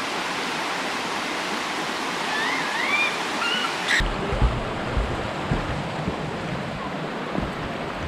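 Steady rush of a creek flowing over rocks, with a bird calling briefly about two to three seconds in. About four seconds in the sound cuts to a duller rush of water, with wind buffeting the microphone and scattered low thumps.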